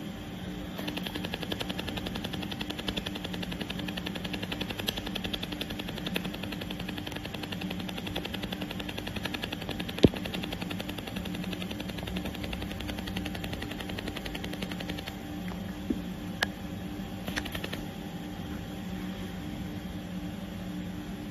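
QCW laser welder firing a rapid, continuous train of pulses, a fast crackling buzz, over a steady machine hum. The pulsing stops about fifteen seconds in, and a few separate sharp clicks come through, one loud one near the middle.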